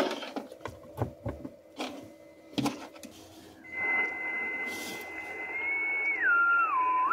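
A few light knocks and clicks, then about halfway in the Yaesu FT-710's external AESS speaker comes up with shortwave receiver band hiss, its enclosure stuffed with acoustic fiberglass. Over the hiss a carrier's whistle holds one pitch, then steps down and swoops back up as the tuning dial is turned.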